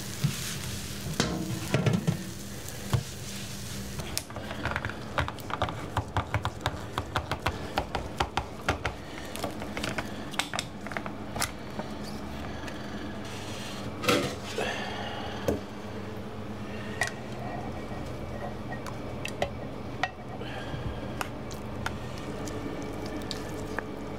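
Kitchen utensils and dishes clattering and tapping in many quick, irregular knocks, with a louder clatter about fourteen seconds in, over a steady low hum.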